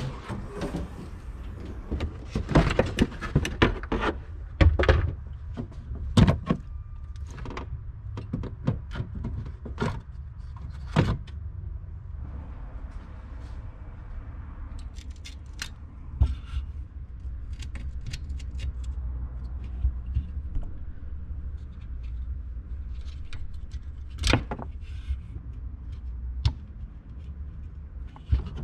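Irregular clicks and knocks of hands working at a BMW E9x 3 Series rear light while a brake light bulb is changed. They come thick and fast for the first ten seconds or so, then more sparsely, with one sharp knock near the end, over a low steady hum.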